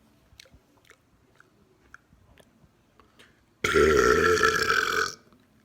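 A man gulps down air with a run of faint clicking swallows, then lets out one loud, long burp about three and a half seconds in, lasting about a second and a half with a slightly falling pitch. The burp is induced on purpose by the swallowed air.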